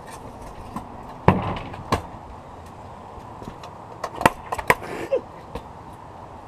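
Freestyle kick scooter hitting a plywood wall ride and the ground: a loud clack of the wheels and deck about a second in, another about half a second later, then a quick run of clacks and rattles around four to five seconds in.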